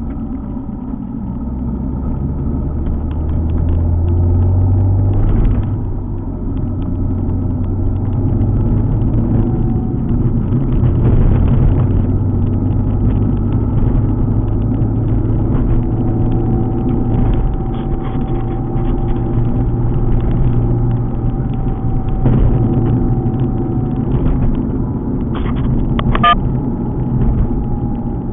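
Alfa Romeo 147 GTA's 3.2-litre V6 engine running on the move, with a low rumble of road noise; the engine pitch climbs a few seconds in and drops back about a second later. A few short clicks near the end.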